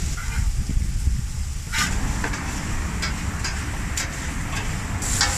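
Metal spatula scraping and tapping on a steel taco griddle with a few sharp clicks, over a faint sizzle of meat frying and a steady low rumble.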